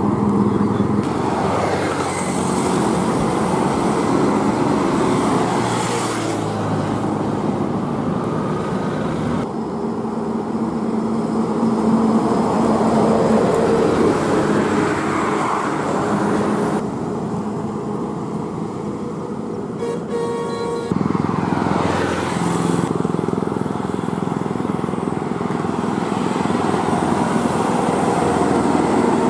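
Loaded multi-axle diesel lorries driving past on a highway: steady engine running and tyre noise. The sound changes abruptly a few times as one passing lorry gives way to the next.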